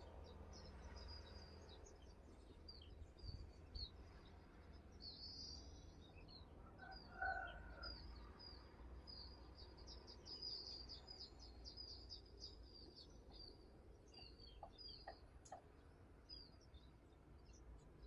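Faint, high-pitched chirping and chattering of small birds: scattered quick notes, thickening into a fast continuous run for several seconds in the middle. A brief lower call stands out about seven seconds in, over a steady low background rumble.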